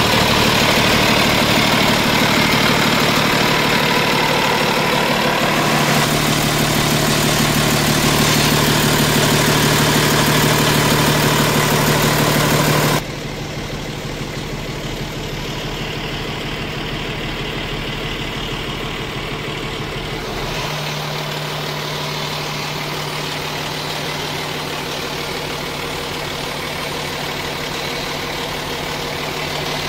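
Cummins ISL9 inline-six diesel engine of a Freightliner 108SD truck idling steadily. Its hum shifts abruptly in tone a few times and drops in level about halfway through.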